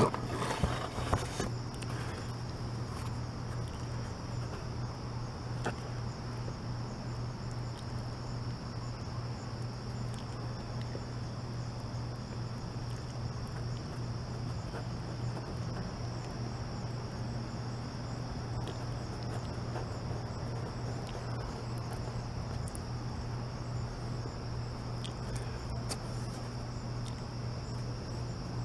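Steady high-pitched insect chorus, like crickets, over a low steady hum, with a few faint clicks.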